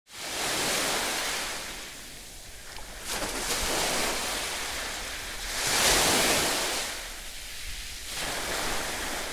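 Small sea waves washing onto a beach, the surf rising and falling every couple of seconds, loudest about six seconds in.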